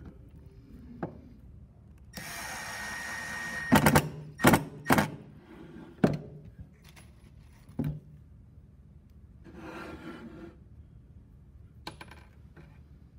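Cordless impact driver driving a screw into a wooden birdhouse panel: the motor whirs for about a second and a half, then a few loud cracks of the hammer action as the screw seats. A couple of knocks follow as the tool and board are set down on the bench, then a short scrape as the board is shifted.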